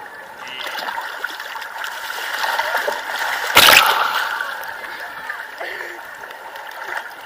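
Sea water splashing and sloshing at the surface as people swim, with one loud splash about three and a half seconds in.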